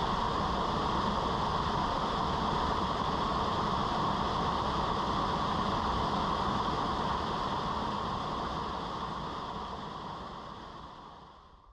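Small waterfall pouring over boulders into a rock pool: a steady rushing of water that fades away over the last few seconds.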